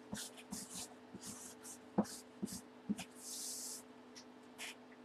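Felt-tip marker writing on a cardboard box: a run of short scratchy strokes and one longer stroke, with a few light knocks of the box.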